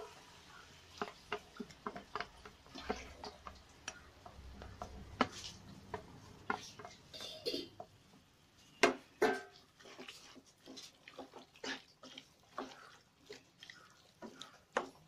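Cooking utensils clicking and scraping: a spoon scraping wet masala paste off a steel plate into a nonstick pot, then a wooden spatula stirring pork pieces and knocking against the pot. Short irregular clicks and knocks, with a louder cluster about nine seconds in.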